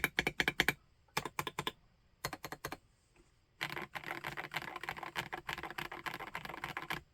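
Typing on a PK x BIOI Command 65 custom 65% mechanical keyboard: three short bursts of keystrokes, then about halfway through a fast, unbroken run of typing that stops just before the end.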